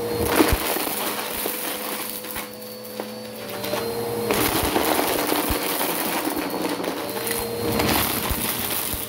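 Bissell Power Force Helix upright vacuum cleaner running with a steady motor hum, with rushing, crackly noise that swells in the first second and again from about four seconds in as it works over the carpet at the edge of a pile of stuffing and plastic debris.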